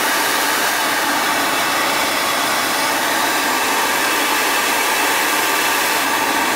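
Steady loud hiss of oxygen gas escaping from the valve and frosted pipework of a liquid oxygen storage tank.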